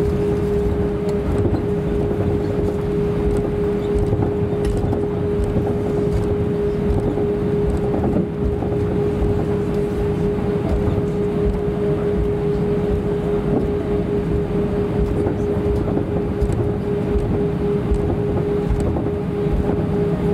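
Airbus A320-232 cabin noise while taxiing, heard inside the cabin: its IAE V2500 engines at idle and the air systems make a steady hum with one constant mid-pitched tone over a low rumble.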